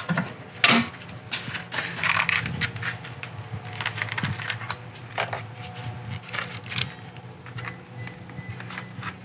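Irregular scraping and clicking of a wire brush working rust off a steel BMW 2002 subframe part, over a steady low hum.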